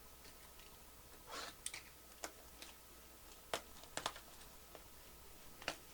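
Faint scattered clicks and taps, about half a dozen, with a short soft rustle about a second and a half in.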